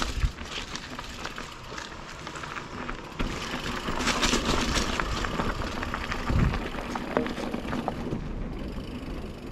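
Mountain bike rolling over a rough dirt and rock trail: continuous tyre noise with frequent knocks and rattles from the bike, loudest about four to five seconds in.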